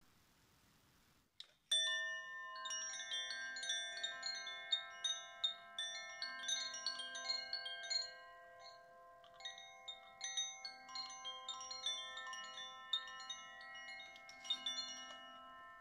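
Chimes ringing: a loose scatter of struck, bell-like metal notes, starting about two seconds in, that ring on and overlap into a shimmering wash, thinning briefly in the middle.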